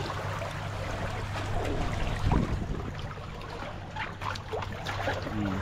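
Water trickling and splashing, with scattered light knocks and one dull thump about two seconds in.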